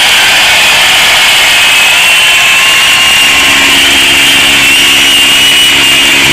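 A sound effect played back from a phone app: a loud, steady mechanical whine over a rushing noise, with lower hum tones joining about halfway. It cuts off abruptly at the end.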